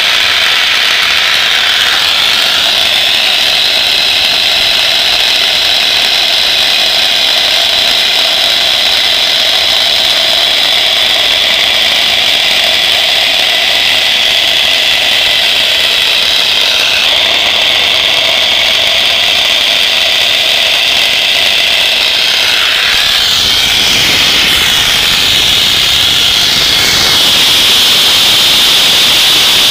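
Homemade HT18 turbocharger turbojet engine running with a loud, steady high-pitched whine over a jet roar. About three-quarters of the way through, the pitch dips and climbs again and a deeper rumble comes in.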